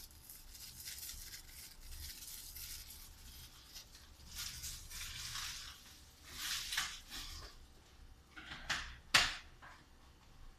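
Crinkling and rustling of a plastic spice packet as ground black pepper is shaken out, then scattered rustles of handling and a single sharp click about nine seconds in, the loudest sound.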